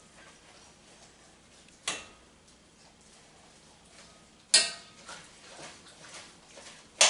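Two metal forks shredding cooked pork, striking the pan with three sharp clinks, the last two loudest, and small soft ticks and scrapes in between.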